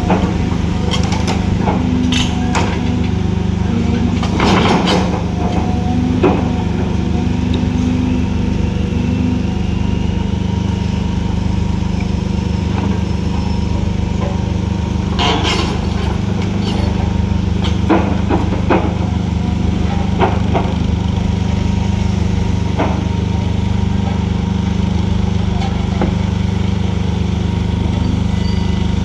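Heavy diesel excavator engine running steadily under load, with scattered metallic knocks and clanks, the loudest a cluster about four to five seconds in and another around fifteen seconds in.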